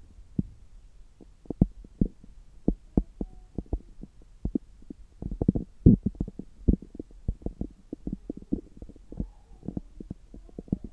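Stomach and bowel sounds through a stethoscope pressed to the belly: irregular quick pops and clicks with a few short gurgles, coming thickest about halfway through.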